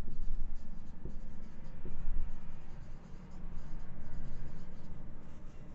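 Marker pen writing on a whiteboard: a run of short, irregular scratchy strokes.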